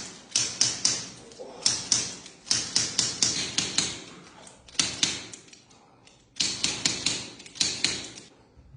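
Quick runs of sharp slaps, about five a second, in several bursts with short pauses between them: hands striking the body during manual therapy.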